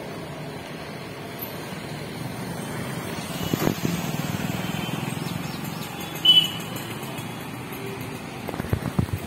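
Steady drone of road traffic and motor vehicle engines, with a few knocks and a short, sharp high-pitched sound about six seconds in.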